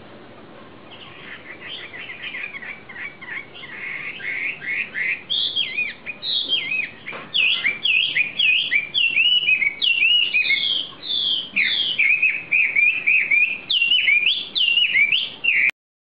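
Caged wambi songbird singing a rapid run of clear whistled notes that swoop down in pitch, growing louder from about five seconds in and cutting off suddenly near the end.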